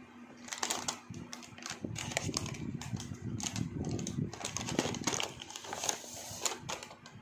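Crinkling and rustling of a foil snack packet of crispy seaweed being handled and torn open, with a dense run of irregular crackles that eases off near the end.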